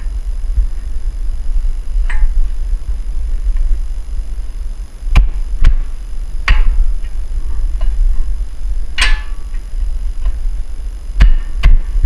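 Metal clicks and clunks of a Jeep Wrangler front brake caliper and pads being fitted back over the disc rotor and seated. There are about half a dozen sharp knocks spread out, one clink ringing briefly, over a steady low hum.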